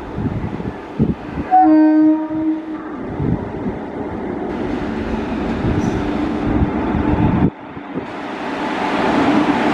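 Indian Railways WAG-7 electric locomotive sounding its horn once, a single steady blast of about a second, over the rumble and clatter of a passing container freight train, with wheels knocking over rail joints. Near the end the rumble drops sharply for a moment, then builds again.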